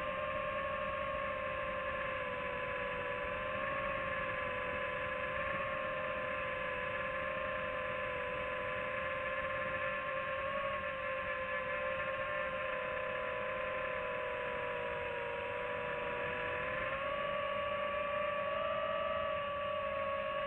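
FPV quadcopter's motors whining steadily in flight, the pitch drifting gently down and back up as the throttle changes, rising again near the end.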